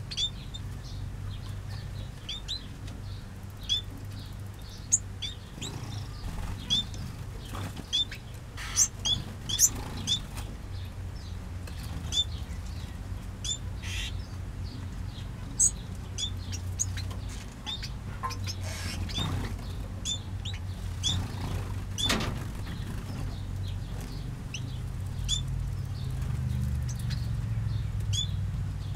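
Small aviary finches giving short, high chirping calls, repeated irregularly throughout, with occasional wing flutters. A steady low rumble runs underneath.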